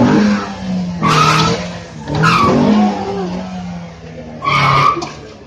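Car engine running hard with tyres squealing in short bursts, three times.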